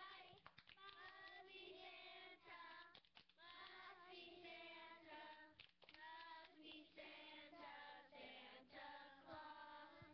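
A group of young children singing a song together, heard faintly, with held notes that step up and down in pitch.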